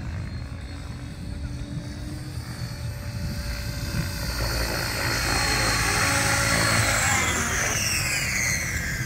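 Tron 7.0 radio-controlled helicopter flying in low and coming down to hover: rotor blades beating with a high motor whine, growing louder from about halfway through, the whine falling in pitch near the end.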